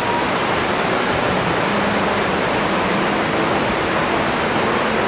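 Artificial rock waterfall pouring into an ornamental pond: a steady rushing of falling water.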